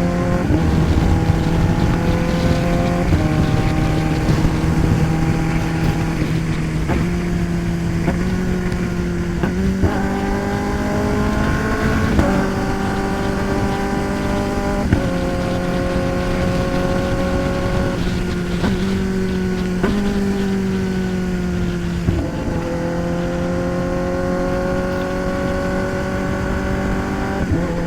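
Kawasaki ZX-10R inline-four engine under way, pulling through the gears: its pitch climbs and drops at each upshift several times, steps down through a few downshifts about two-thirds through, then climbs steadily again. A steady rush of wind noise runs beneath it.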